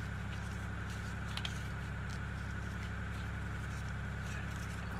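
Steady low background hum, with a few faint light clicks and rustles as the starter cord is wound by hand onto the recoil pulley of a chainsaw starter cover.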